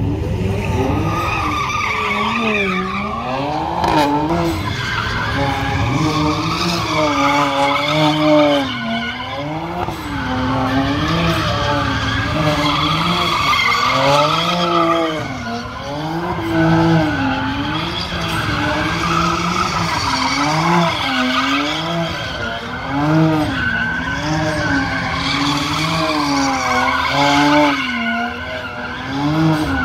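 A car doing donuts with its tires squealing steadily. The engine note rises and falls in a regular cycle, about once every second and a half, as it circles.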